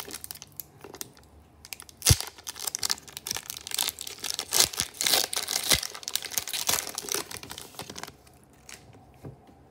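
Foil wrapper of an Upper Deck SP hockey card pack being torn open and crinkled by hand, with dense crackling and two sharper snaps, about two and six seconds in.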